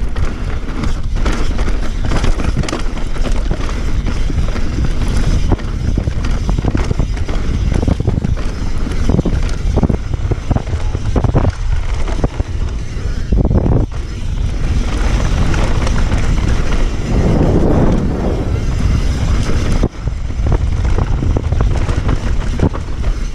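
Wind buffeting the microphone over a steady low rumble, with frequent knocks and rattles, as of riding fast down a rough run. It drops out briefly twice, about halfway through and again later.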